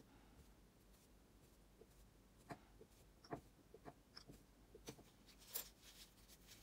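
Near silence broken by a few faint, short taps and clicks of a pencil end and wooden dotting tool dabbing paint dots onto a painted stone, starting about two and a half seconds in, with a brief rustle near the end.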